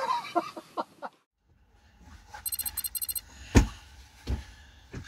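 Two heavy thumps of footsteps on a sailing yacht's deck as a person climbs aboard, the first the loudest, after a brief rapid high-pitched chirping.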